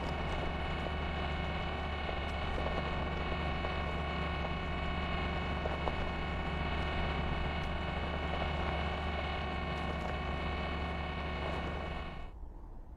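Steady mechanical hum with several held tones over a deep low drone. It starts suddenly and cuts off about a second before the end. It serves as a sound effect for the animated Mars rover's machinery.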